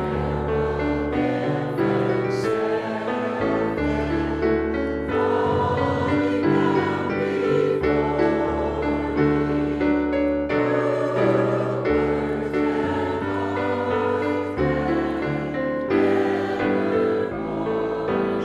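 A church choir and standing congregation singing a hymn together to keyboard accompaniment with long held bass notes.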